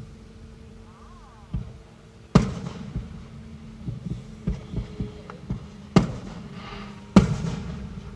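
Aerial fireworks shells bursting: a string of sharp bangs, the loudest near a third of the way in and twice near the end, each trailing off in an echo, with lighter pops and crackles between them.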